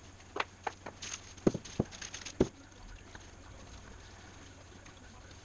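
A handful of sharp knocks and clicks with crinkling plastic: a wooden moulding plane handled and set upright in a plastic tub, with a plastic sheet moved aside. It stops after about two and a half seconds, leaving a faint low hum.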